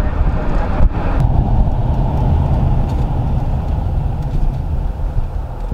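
Police patrol car driving, heard from inside the cabin: a steady, loud low rumble of road and engine noise.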